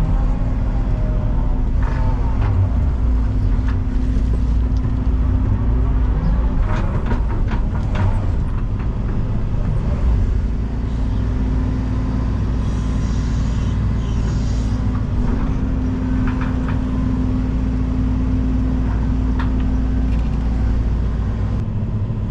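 Excavator's diesel engine running steadily, with scattered metallic clanks and knocks.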